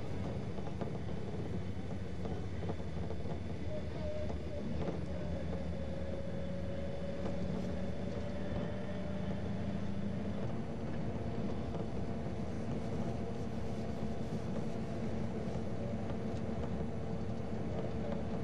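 Car engine running with steady road noise, heard from inside a moving car; the engine note changes pitch about ten seconds in.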